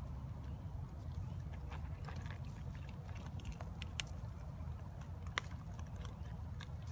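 Young raccoons foraging and eating in dry leaf litter: scattered small clicks, crackles and rustles, with two sharper clicks in the second half, over a steady low hum.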